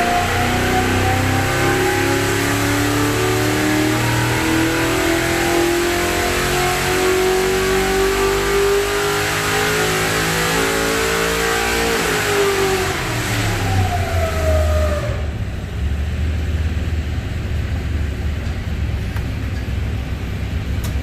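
1969 Corvette V8 racing engine on a dynamometer making a full-throttle pull, its pitch rising steadily for about twelve seconds, then dropping quickly as it comes off throttle and settling to idle.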